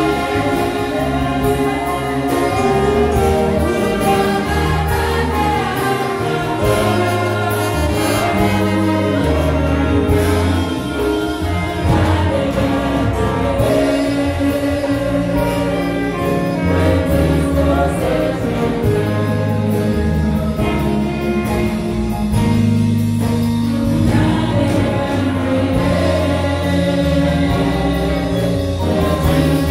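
Live gospel worship singing: a group of women's voices sung into handheld microphones, with instrumental backing and long held bass notes underneath.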